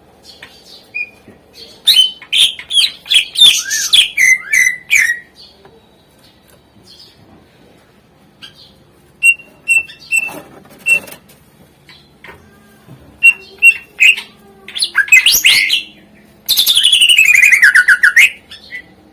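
Green leafbird (cucak ijo) singing a song filled with mimicked phrases: bursts of fast chirps and whistles, runs of short repeated notes, and near the end a long trill sliding down in pitch.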